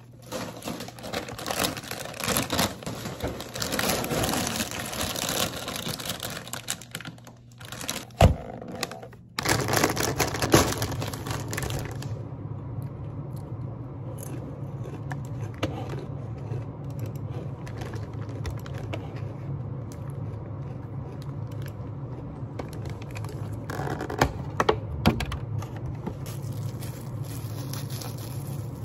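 Plastic snack bags crinkling and rustling as they are handled on a desk, with a knock about eight seconds in. Then quieter crunching of potato chips over a steady low hum, and near the end the crackle of a plastic clamshell container and its wrap being opened.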